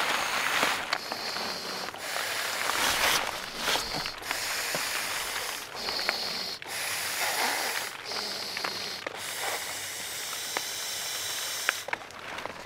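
Inflatable sleeping pad being blown up by mouth: long hissing breaths of air rushing into the valve, about seven of them, one after another with short pauses between.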